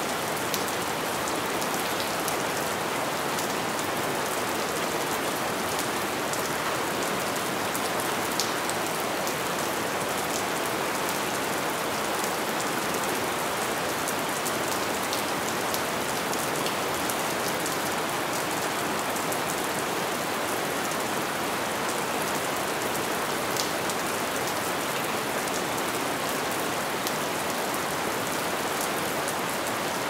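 Heavy rain falling steadily, with scattered sharp drop ticks over the even hiss.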